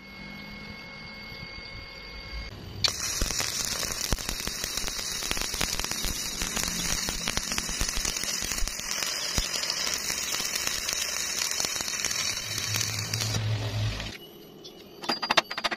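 Stick (shielded metal arc) welding: the electrode's arc crackles and sizzles steadily for about ten seconds as it lays a bead joining a galvanized steel pipe to a steel plate. It starts about three seconds in and cuts off about fourteen seconds in.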